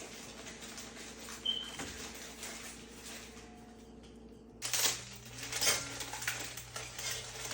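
Kitchen clatter: light knocks and clinks of kitchenware over a steady electrical hum, with a sudden change in the background hum about four and a half seconds in.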